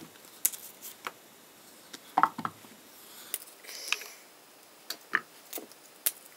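Bananas being peeled by hand and dropped into a plastic Vitamix blender jar: soft tearing and rustling of peel, scattered light taps, and a dull thump about two seconds in.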